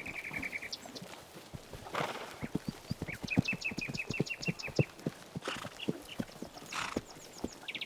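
Hoofbeats of a horse herd moving over the steppe, with a small bird singing a quick run of about ten repeated high notes midway and a few brief breathy noises from the horses.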